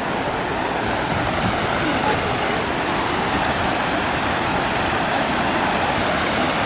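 Whitewater rushing steadily through a concrete artificial slalom channel, a constant dense hiss and roar of churning rapids.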